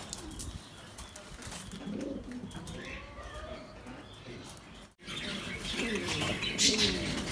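Domestic pigeons cooing in repeated low, rolling calls. The calls are faint at first, then, after a brief dropout about five seconds in, they become louder and more frequent.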